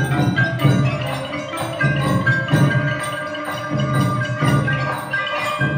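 Khmer pinpeat ensemble playing: wooden roneat xylophones and gong-circle notes ringing over low drum strokes, in a steady continuous texture.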